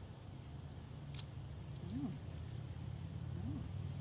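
A low steady hum that slowly grows louder, with one faint click about a second in and two short high chirps later on.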